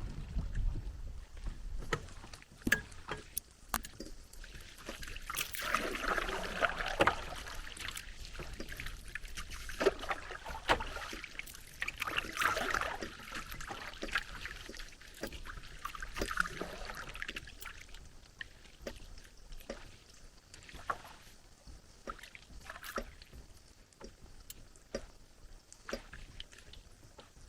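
Paddle strokes in lake water from a small paddled boat, with watery swishes coming in stretches and scattered small knocks.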